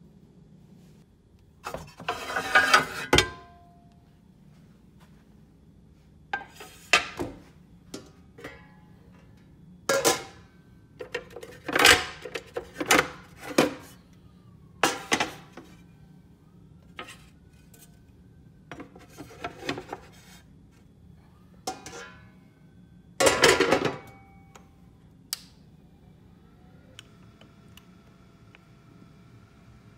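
Kitchen cookware being handled: irregular clanks and clatters of metal pans and a glass lid set down and moved about, a dozen or so short bursts, the loudest near the start and again about three-quarters through.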